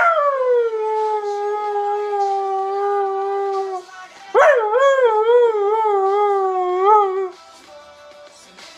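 Husky howling along to a pop song, twice: a long howl that slides down from a high start and holds one pitch, then after a short breath a second howl that rises and wavers up and down before stopping about three-quarters of the way through. The song plays faintly underneath.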